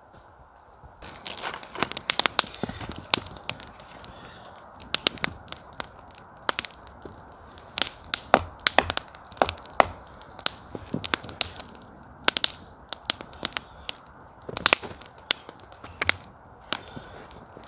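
Small wood campfire crackling, with many sharp, irregular snaps and pops over a low hiss, starting about a second in.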